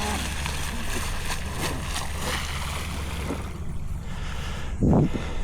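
Steady outdoor rumble and hiss of wind and water at the waterside, with a louder low buffet just before the end.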